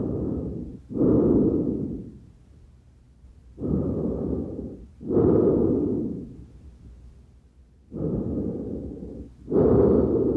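Breath sounds heard through a stethoscope: three slow breath cycles, each a pair of airy sounds with a short pause between, the second of each pair the louder.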